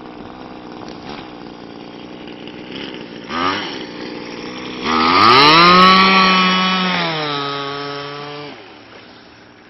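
26cc two-stroke gas engine of a Wild Thing RC boat running on the water. About five seconds in it gets much louder as the boat speeds past close by, its note climbing and holding high, then dropping and fading away near the end.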